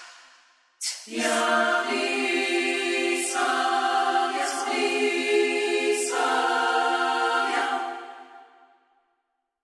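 Choir singing a cappella in long held chords that shift every two to three seconds. It comes in about a second in after a brief break and fades out near the end.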